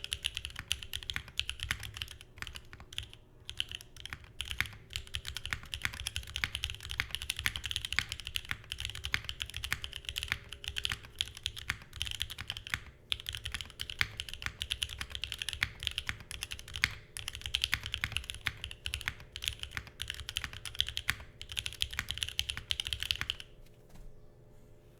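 Continuous typing on a Geonworks Frog Mini mechanical keyboard with lubed and filmed Durock Lavender switches on an aluminium plate, under GMK keycaps: a rapid, dense clatter of keystrokes that stops about a second and a half before the end.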